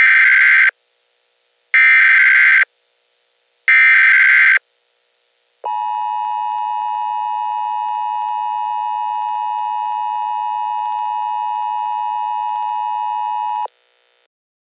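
Emergency Alert System header: three short bursts of screeching SAME digital data, each just under a second, then the steady two-tone EAS attention signal for about eight seconds, which cuts off suddenly. This sequence marks the start of an emergency alert broadcast.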